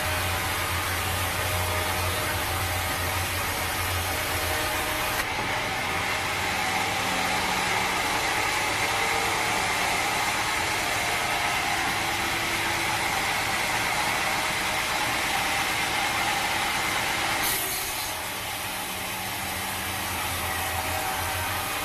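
Sawmill machinery running steadily with a low hum and a higher whine. The sound changes abruptly about five seconds in and again a few seconds before the end.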